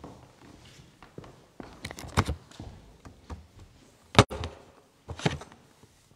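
Handling noise of a handheld microphone and papers at a lectern: a few scattered knocks and rustles, with one sharp, loud click about four seconds in.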